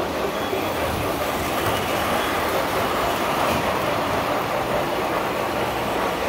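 Standard-gauge electric toy trains running on three-rail track: a steady rolling rumble of wheels and motors as passenger cars pass.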